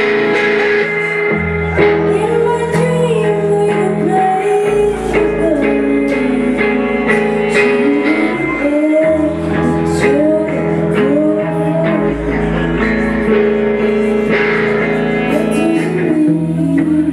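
Live rock band playing: guitar chords over held bass notes and drums, with a singer's voice sliding between notes.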